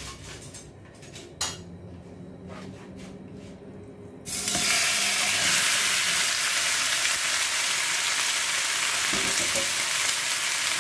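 Chunks of raw pork hit hot oil in a nonstick frying pan and start sizzling loudly about four seconds in, a steady frying hiss as the meat begins to brown. Before that there are only a few light clicks and knocks of handling.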